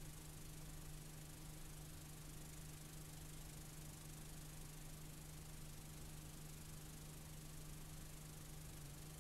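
Steady hiss with a low, even hum beneath it: the background noise of a blank stretch of analogue videotape playing back.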